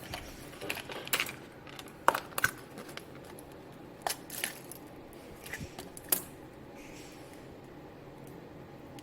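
Small hard objects clicking and clinking together as they are rummaged through and handled by hand. There are a handful of sharp clicks spread over the first six seconds.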